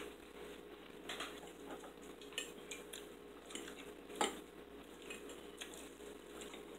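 Metal forks clinking and scraping on ceramic dinner plates in light, scattered taps, the sharpest about four seconds in.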